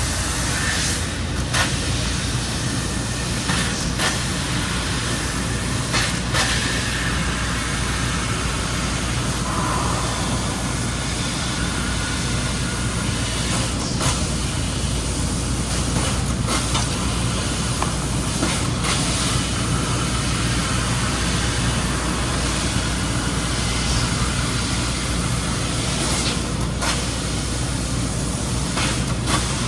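Bystronic ByLaser 6000 CNC CO2 laser cutting machine running while cutting parts: a steady hum with a constant rush of noise, and a sharp click or knock every few seconds.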